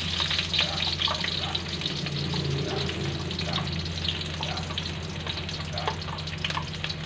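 Sliced shallots sizzling and crackling in hot cooking oil in a wok, frying over moderate heat so they brown slowly. A steady low hum runs underneath.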